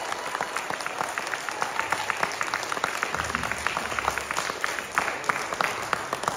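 A crowd applauding, many hands clapping irregularly, with the applause dying away near the end.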